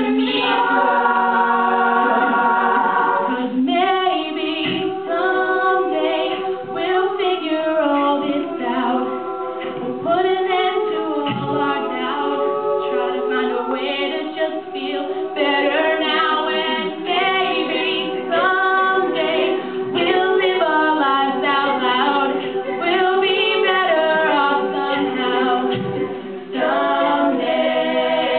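All-female a cappella group singing: a solo voice over the group's backing vocals, with a low note held steady through most of it.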